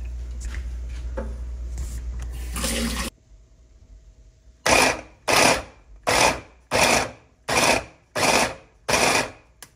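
Electric food chopper grinding bacon. It runs steadily for about three seconds and stops suddenly, then after a short pause it is pulsed in short bursts, about three every two seconds.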